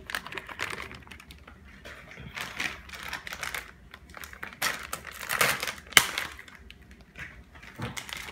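Plastic bag of shredded cheese rustling and crinkling in the hands as it is emptied and a second bag is opened, with irregular small clicks and one sharp click about six seconds in.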